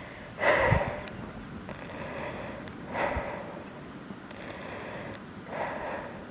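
Slow, deep breaths of a woman with cystic fibrosis, heard very close up, about one every two and a half seconds, with crackling through them: the lung crackles of her cystic fibrosis, on an evening when her chest feels tight.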